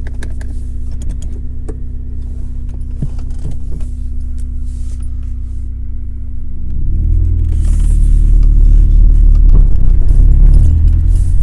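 2001 Honda Accord coupe's four-cylinder engine running steadily, with a few light clicks, running again after a new fuel pump relay cured its crank-but-no-start. About seven seconds in it grows louder with a deep rumble as the car pulls away.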